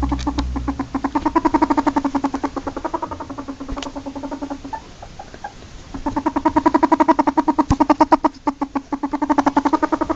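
Ferret dooking: a rapid run of short, pitched clucking pulses in two bouts, with a pause of about a second about halfway through.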